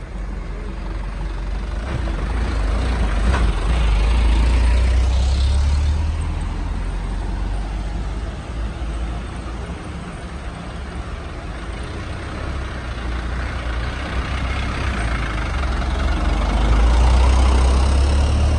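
Heavy diesel truck engines rumbling low, swelling louder twice as trucks come close, about four seconds in and again near the end. A single sharp click or hiss, such as an air brake, is heard about three seconds in.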